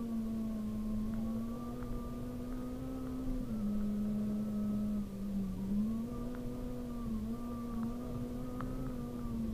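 Onboard sound of a Honda Civic Type-R rally car's four-cylinder engine running hard at a steady high pitch, heard from inside the cabin. The pitch drops about three and a half seconds in, dips once more, and climbs back up near six seconds. Road noise from the tyres lies underneath, with a few sharp ticks.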